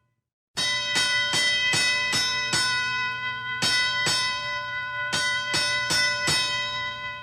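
Boxing ring bell struck rapidly over and over, about a dozen strikes at two or three a second with a short pause midway, each strike leaving a bright metallic ring. It starts about half a second in, and the ring fades away after the last strike.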